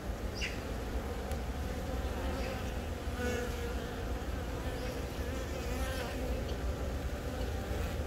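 Honeybees buzzing steadily: the continuous hum of a colony's worker bees on the comb.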